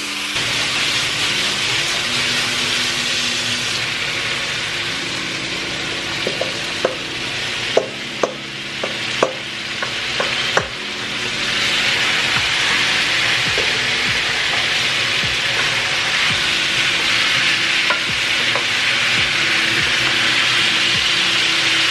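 Curry chicken frying in a pot, sizzling steadily while it is stirred with a spoon. Between about six and eleven seconds in, the spoon knocks against the pot several times. The sizzle grows louder from about twelve seconds in.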